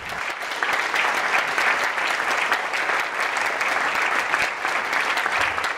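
Audience applauding: many hands clapping together, starting at once and holding steady.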